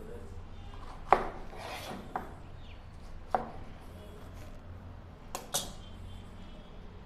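Kitchen knife striking a cutting board in a few slow, irregular cuts, the loudest about a second in, with a brief scrape of the blade after it and two quick cuts near the end.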